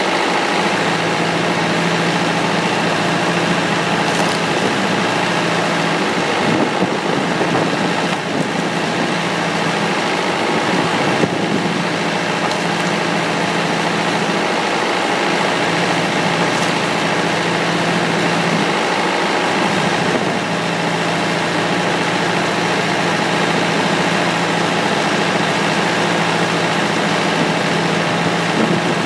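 Tractor engine running steadily, powering a 13-ton foot-operated log splitter, its note shifting slightly a few times as the splitter works.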